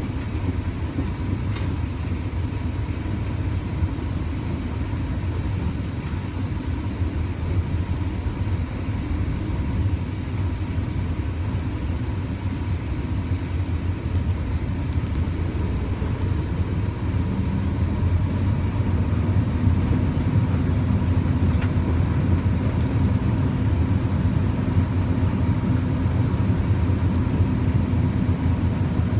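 A truck's engine running steadily while driving, a low rumble heard from inside the cab. About two-thirds of the way through, the engine note rises a little and gets slightly louder.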